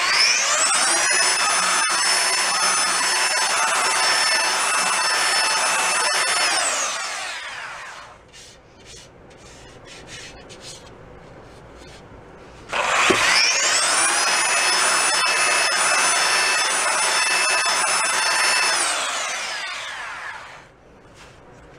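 Handheld belt sander with a fine-grit belt running over a wooden snare drum shell. It spins up with a rising whine, runs steadily for about six seconds and winds down. A few seconds later it starts again sharply and runs about six seconds more before winding down near the end.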